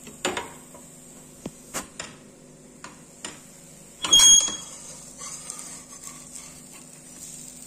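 Perforated stainless-steel spatula tapping and scraping on a cast-iron tawa: a few light clicks, then one louder ringing metal clink about four seconds in.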